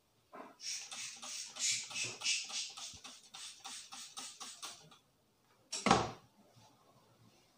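Plastic trigger spray bottle squirted rapidly, about five hissing spurts a second for roughly four seconds, misting water onto hair. About a second after the spraying stops, a single sharp thud is heard, louder than the spraying.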